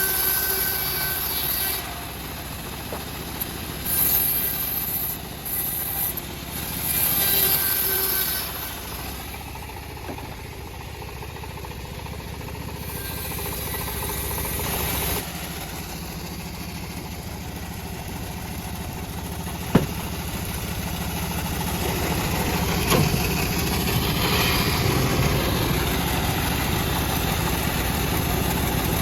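Engine of a homemade bandsaw sawmill running steadily, with bursts of high hissing in the first half and two sharp knocks later on.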